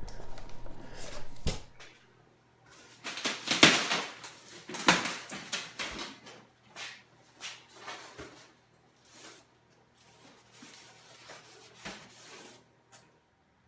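Unpacking noises: irregular scrapes, knocks and rustles of packaging being handled, loudest about three to five seconds in, then quieter and scattered.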